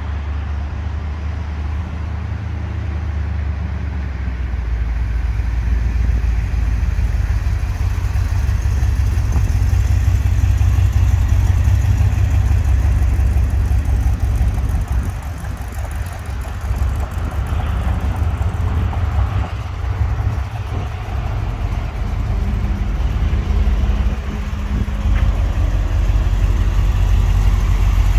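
1969 Corvette Stingray's 427 cubic-inch, 435-horsepower big-block V8 running at low speed as the car drives up, growing louder as it comes closer, easing off briefly about halfway and rising again as it pulls up near the end.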